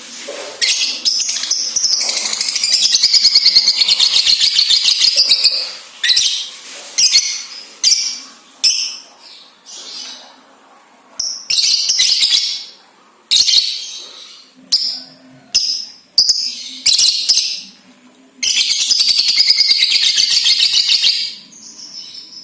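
Lovebird giving its 'ngekek' call: long, rapid chattering trills lasting several seconds, one starting about a second in and another near the end, with many short sharp chirp bursts in between.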